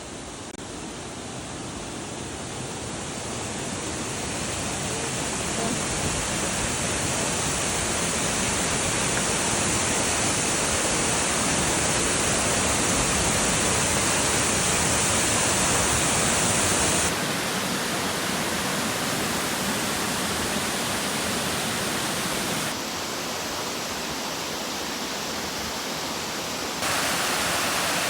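Bousra Waterfall's water falling, a steady full rushing sound. It swells in over the first few seconds, then changes tone abruptly about two-thirds of the way through and twice more near the end, as the shot changes.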